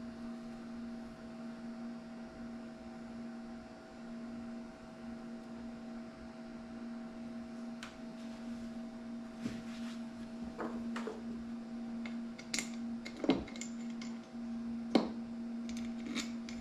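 Steady electrical hum. From about halfway through come scattered clicks and knocks as clamped metal soft-plastic bait molds are handled on a workbench, the loudest near the end.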